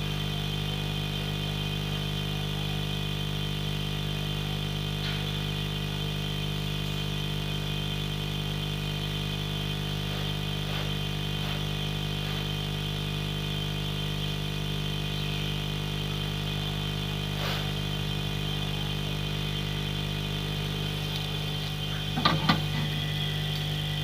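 Hot air rework station blowing steadily, a constant hum with a fixed whine, as it heats the solder under a new phone charging socket to seat it. A few sharp knocks come near the end.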